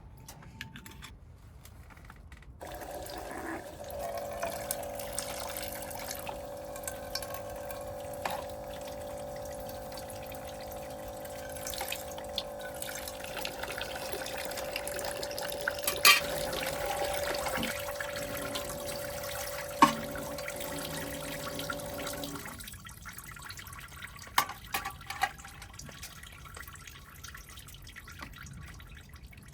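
Water running from a tap into a camp sink for about twenty seconds, with a steady hum under it, then shutting off about 22 seconds in; a couple of sharp knocks partway through and a few drips after it stops.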